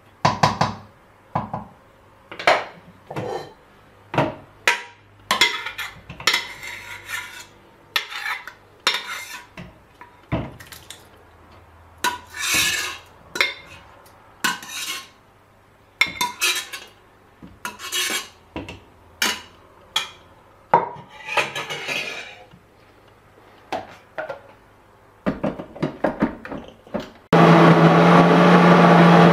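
A utensil knocking and scraping inside a blender jar of tomato and red pepper purée, many short clinks and scrapes at irregular intervals. About 27 s in, an Arnica blender motor switches on and runs steadily and loudly, blending the purée.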